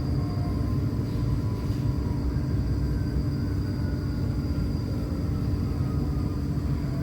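Inside the cabin of a moving CFL electric passenger train: steady running rumble with a faint whine that falls slowly in pitch, and a thin high steady tone above it.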